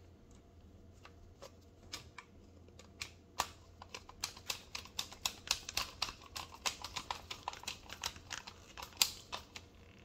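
Screwdriver tightening the terminal screw of a 40-amp double-pole circuit breaker onto a black wire: small sharp clicks, a few at first, then an irregular run of several a second from about three and a half seconds in until near the end.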